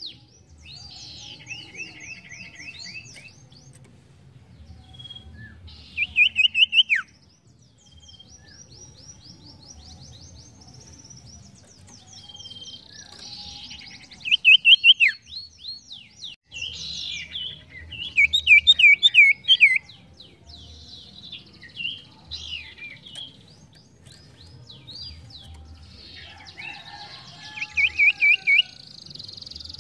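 Caged sirtu songbird singing in bursts of rapid chattering trills and sharp whistled notes, with softer calls between the loud phrases, which come about six, fifteen, nineteen and twenty-eight seconds in.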